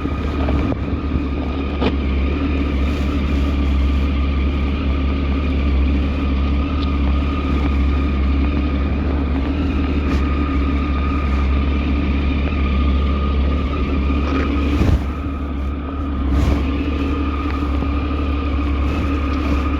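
A vehicle running with a steady low drone and a constant high-pitched whine over it, with a few faint clicks and a brief drop and swell in level about fifteen seconds in.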